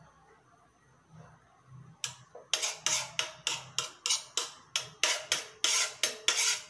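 Steel spoon scraping and tapping against a metal frying pan while stirring and breaking up egg white and lime juice as it sets in the heat. The strokes start about two seconds in as a fast run of metallic clicks, about four to five a second.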